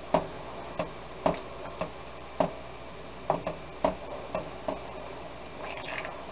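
Wooden spoon stirring sauce in a large pan, knocking against the pan's sides and bottom in short, irregular clicks about twice a second.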